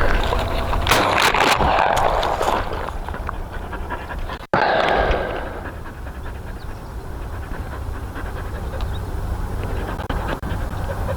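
Hunting dog panting hard close by, with a short break about four and a half seconds in.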